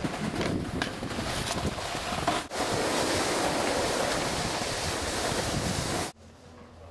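Steady rushing noise of wind buffeting the camera microphone and a snowboard sliding over packed snow, with scattered scrapes in the first couple of seconds. It drops away suddenly about six seconds in.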